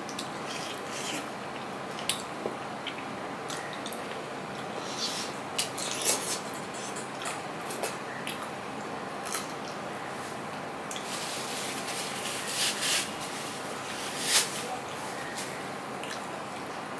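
Close-up eating by hand: fingers squishing rice and curry on a steel plate, with wet mouth smacks while chewing. The sounds come as scattered sharp wet clicks over a steady hiss, with one louder smack near the end.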